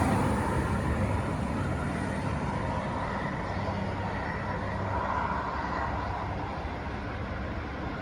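V/Line VLocity diesel multiple unit pulling away from the platform, its engine and rolling noise fading steadily as it recedes.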